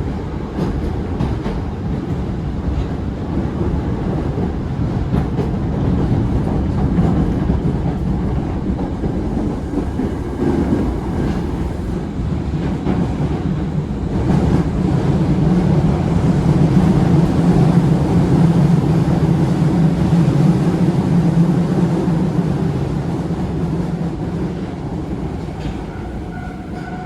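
Osaka Metro 22 series subway train (set 22616F, GTO-VVVF control) running between stations: a steady rumble of wheels on rail with some clickety-clack. It grows louder a little past the middle, then eases off toward the end.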